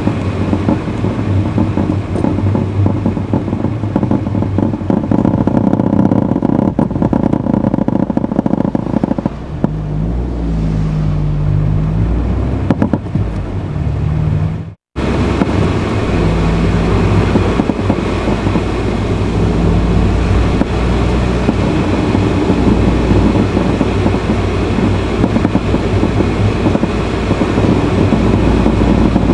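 A Honda Fit (GE8) running with a steady low hum, the car in which the owner reports an intermittent abnormal noise. Partway through, a low tone shifts in pitch a few times. Just before the halfway point the sound cuts out completely for a split second.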